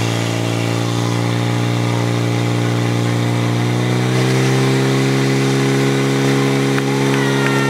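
Portable fire pump's engine running steadily at high speed, driving water through the hoses. Its pitch rises slightly about four seconds in. A few thin high tones come in near the end.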